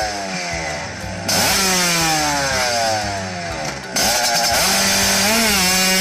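Vespa scooter's two-stroke engine revving hard as it launches from a standing start. The pitch falls over the first few seconds, then jumps up about four seconds in and holds high.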